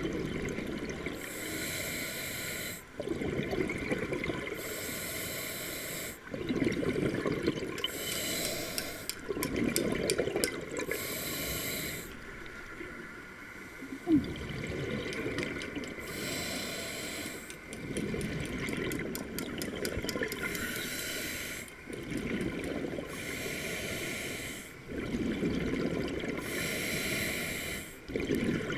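Scuba regulator breathing underwater: a hiss on each inhale, then a bubbling rumble as the exhaled air escapes, repeating about every three seconds. One sharp click comes about halfway through.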